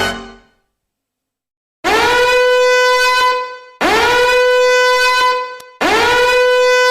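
Meme sound effect: a brassy horn blast sounded three times, each about two seconds long, scooping up in pitch at the start and then holding one steady note. Before the blasts, the end of the previous clip fades out into a moment of silence.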